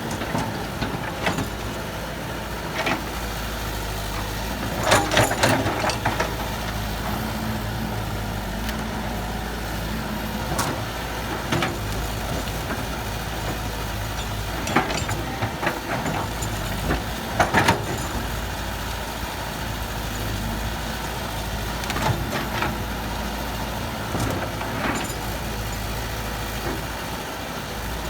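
Heavy diesel earthmoving machinery running steadily, with short clanks and knocks scattered through, loudest in clusters about five seconds in and again around fifteen and seventeen seconds in.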